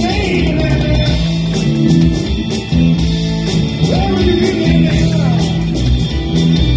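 Live rock band playing with electric guitar, bass guitar, drums and keyboard, the drums keeping a steady beat under a repeating bass line.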